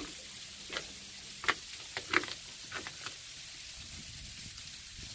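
Freezing rain falling with a steady high hiss, and scattered sharp ticks of drops or ice striking nearby surfaces, about half a dozen in the first three seconds.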